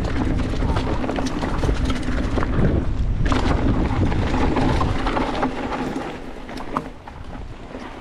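Mountain bike riding fast down a dirt trail: wind buffeting the microphone, tyres on loose dirt and the bike rattling and knocking over bumps. It eases off after about six seconds.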